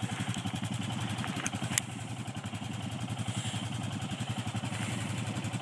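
An engine idling steadily with a fast, even pulse, with a single sharp click about two seconds in.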